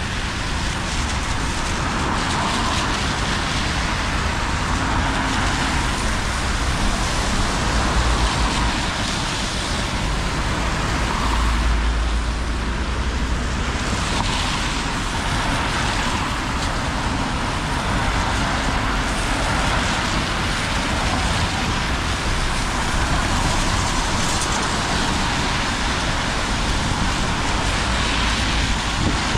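City traffic on a rain-soaked street: a steady hiss of tyres on wet asphalt under the low rumble of bus and car engines. The rumble swells twice as vehicles pass close.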